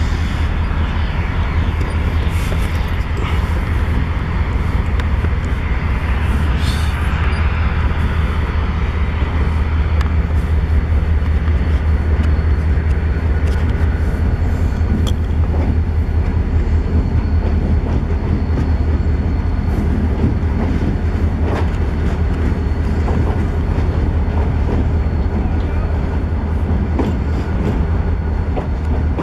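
Passenger train led by the Alco 0-6-0 steam locomotive CNJ 113, rolling along with a steady low rumble and scattered clicks, heard from a vehicle pacing alongside it.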